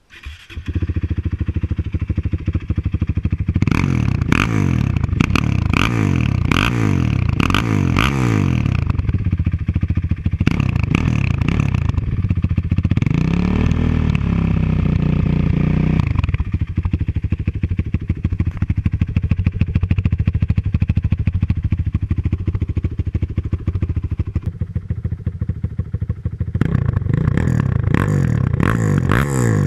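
Honda TRX450R's single-cylinder four-stroke engine catching and starting, then revved with a run of quick throttle blips. About 13 seconds in comes one longer rev that rises and falls, then it idles steadily before more blips near the end.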